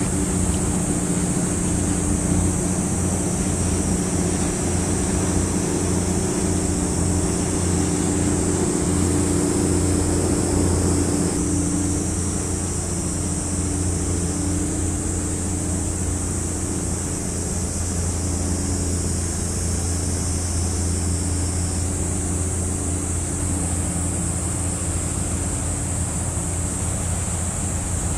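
Large cargo ship's diesel engine heard across the water as a steady low drone, with wind and water noise and a steady high-pitched hiss above it.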